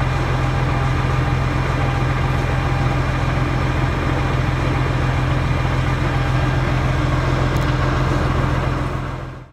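International Harvester tractor's diesel engine idling steadily, heard from the rear by the hydraulic remotes; it cuts off abruptly near the end.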